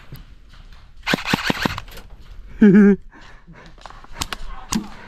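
Airsoft guns firing: a quick burst of sharp shots a little over a second in, and single cracks near the end. Just before the middle comes a brief, loud, wavering voice-like call, the loudest sound here.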